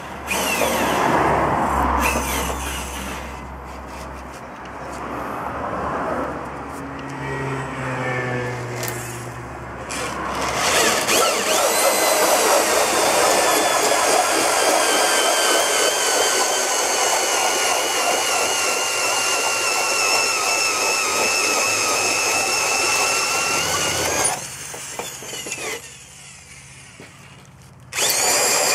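Heavy electric drill driving a cone-shaped pole-pointing head, its motor whining steadily under load while the blades shave a round wooden post to a point. The pitch wavers as the cut bites. Mixed, quieter noise comes first; the drill drops away for a few seconds near the end and then starts again.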